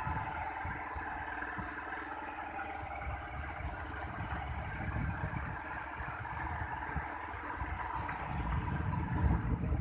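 A vehicle engine running steadily, under an uneven low rumble that swells and fades.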